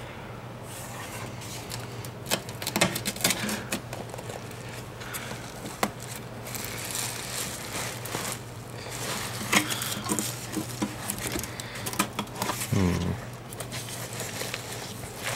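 Scattered light clicks, taps and rustling from handling things, over a steady low hum, with a brief murmur of a voice near the end.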